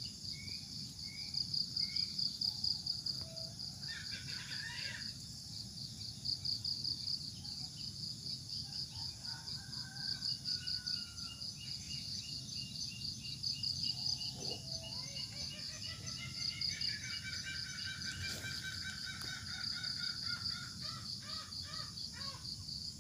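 Insects chirring steadily in a fast, high, pulsing drone, with bird calls over it: a run of short repeated notes in the first couple of seconds and a longer call of several held notes later on.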